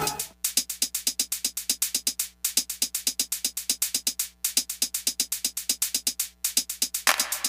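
Electronic background music: a fast, steady drum-machine beat of short clicky hits, about nine a second, dropping out briefly every two seconds or so, with a hissing swell coming in near the end.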